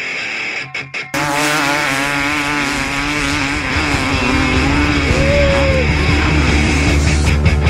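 Dirt bike engines revving hard, starting abruptly about a second in, their pitch wavering up and down as the bikes accelerate, with rock music underneath.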